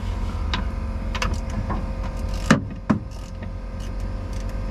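A steady low hum runs throughout, with scattered light clicks and two sharper knocks about two and a half and three seconds in, from hand work on metal parts.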